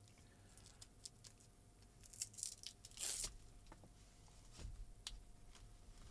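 Faint handling noises of an HDMI lead and its packaging: scattered light clicks and a short crinkly rustle about three seconds in, over a faint steady hum.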